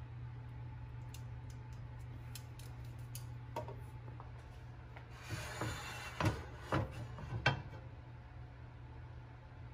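Metal kitchen tongs clicking over a stainless pan and set down on a wooden cutting board, over a steady low hum. About halfway through come rubbing and three or four sharp knocks, the loudest sounds.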